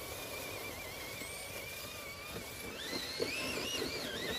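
1/10-scale RC rock crawler's electric motor whining, its pitch wavering as the throttle is worked, then stepping up to a higher whine a little under three seconds in. A few faint knocks from the crawler's tyres on the roots and dirt.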